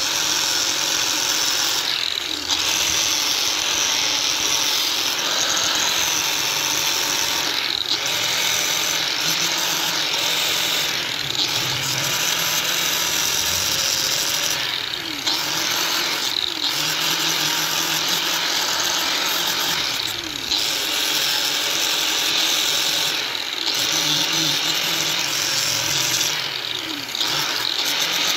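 Electric angle grinder running with its abrasive disc pressed against a knife, grinding and shaping it. The grind is steady and harsh, and it eases briefly every few seconds as the disc is lifted and set back on the work.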